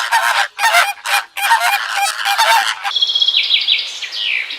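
Birds calling: a rapid run of harsh honking calls for about three seconds, then a few high, thin chirps near the end.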